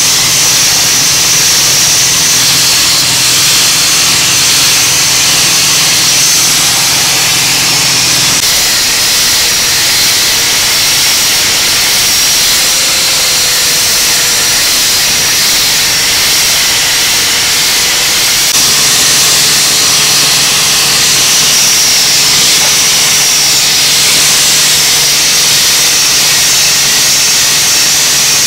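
Handheld angle grinder running against a rusty steel tube frame, grinding the metal: a steady high whine over harsh grinding noise.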